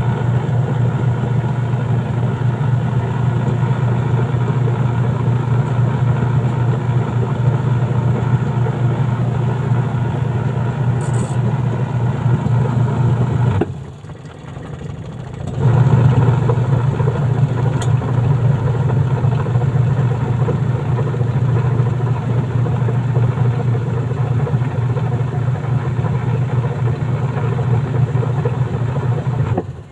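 Washing machine wash motor running with a steady low hum. It stops for about two seconds midway and then starts up again.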